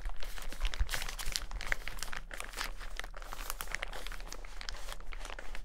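Folded waterproof rain poncho fabric rustling and crinkling as it is handled in both hands, a dense run of small crackles.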